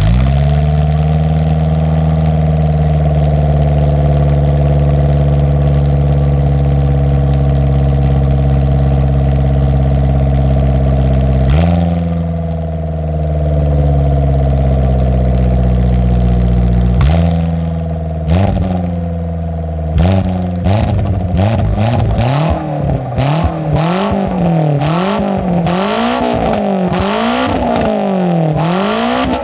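Car engine through a one-off exhaust with a 5ZIGEN silencer and no baffle, very loud. It idles steadily for about eleven seconds, is blipped a few times, then is revved up and let fall back about every two seconds toward the end.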